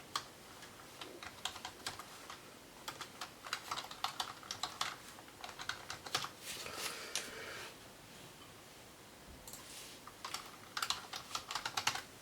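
Computer keyboard keys being typed in short runs of quick clicks, with a pause in the middle.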